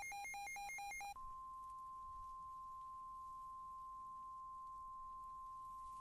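Electronic emergency-alert tones. A rapid beep at about four pulses a second stops about a second in. A single steady, high pure tone then takes over and holds, like the 1050 Hz weather-radio warning alarm tone.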